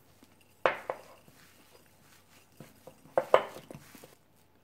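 Ceramic mixing bowl clattering as a gloved hand tosses dried green laver with sesame seeds: two brief bursts of knocks and scrapes, about two and a half seconds apart.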